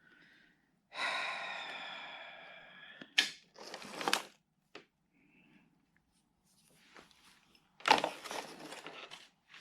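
A metal tool accessory rings out about a second in and fades over about two seconds. Sharp clicks and rustling follow as the tools and accessories are handled.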